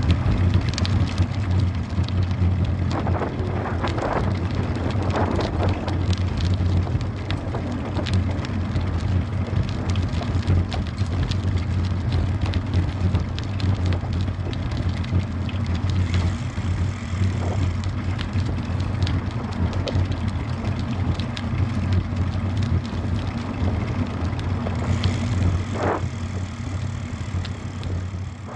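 Steady low rumble of a moving bicycle picked up by its handlebar-mounted action camera: tyres rolling on paved path and air rushing past the microphone, with scattered clicks and rattles.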